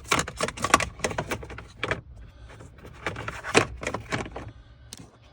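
Hard plastic clicking, knocking and rattling of an HVAC blend door actuator being wiggled by hand into its mount under a Jeep Wrangler's dash, in irregular clusters of sharp clicks.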